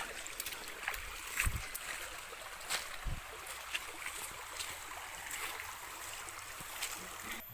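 Stream water running, with scattered rustles and clicks and two dull thumps about one and a half and three seconds in, as someone moves through the water's edge.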